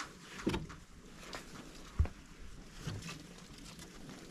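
Wet laundry being lifted out of a twin-tub washing machine's wash tub, water sloshing and dripping, with scattered knocks and one sharp thump about two seconds in.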